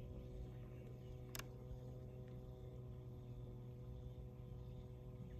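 Radio-controlled model fireboat running on the water: a steady low engine-like hum, with one sharp click about a second and a half in.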